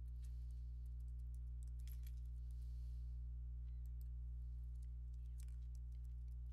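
Computer keyboard keys clicking in short irregular runs of taps, over a steady low electrical hum.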